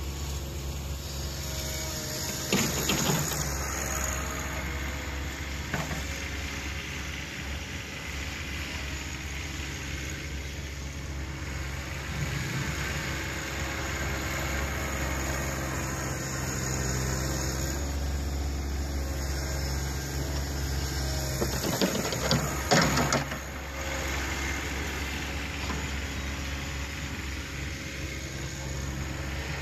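John Deere 1026R compact tractor's three-cylinder diesel running steadily as it drives and pushes snow with its front loader, with two brief louder clunks, about three seconds in and again about two-thirds of the way through.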